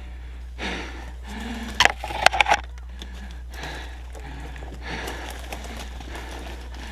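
A person breathing hard in and out close to the microphone, with a few sharp clicks about two seconds in, over a low steady hum.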